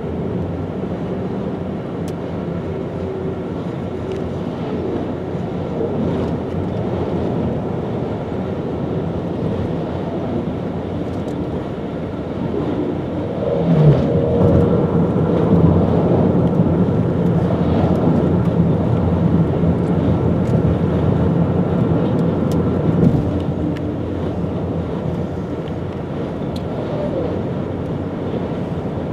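Steady road and wind noise inside a moving car at highway speed. It grows louder with a low hum for several seconds about halfway through, then settles back.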